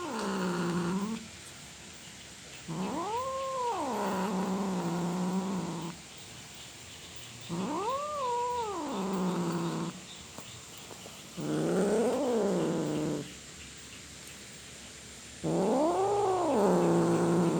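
Domestic cat yowling (caterwauling): four long drawn-out calls, each rising and then falling in pitch and ending in a low held moan, with short pauses between them.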